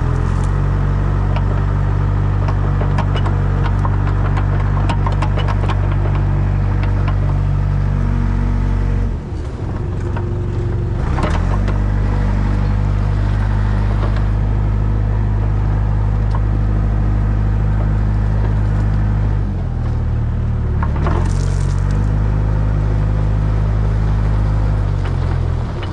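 Heavy construction equipment diesel engine working steadily. Its pitch dips and recovers three times: about 9 seconds in, about 20 seconds in, and near the end. Scattered crackling and scraping runs through the first several seconds.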